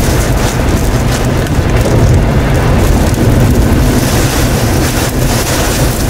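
Flash-flood torrent of muddy river water rushing, a loud, steady noise with a heavy low rumble.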